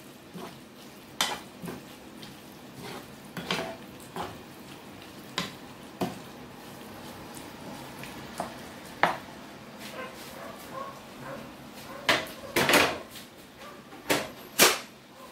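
Slotted wooden spatula stirring vegetables in a frying pan, with irregular knocks and scrapes of wood against the pan over a faint steady sizzle; the loudest knocks come near the end.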